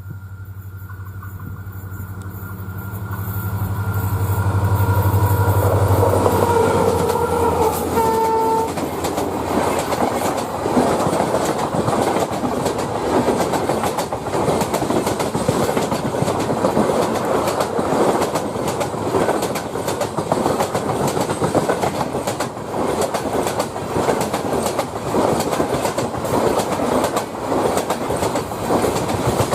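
Diesel locomotive approaching, its engine drone growing louder, and sounding its horn around eight seconds in. Then the train's coaches run past with a steady clickety-clack of wheels over rail joints.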